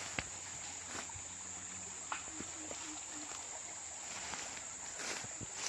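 Forest insects singing one steady high-pitched drone, with a few faint clicks.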